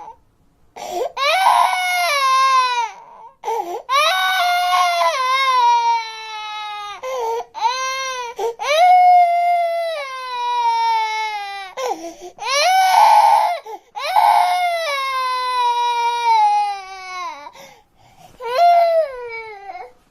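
Newborn baby crying: a string of long, high-pitched wails, most falling in pitch, with short catches of breath between them.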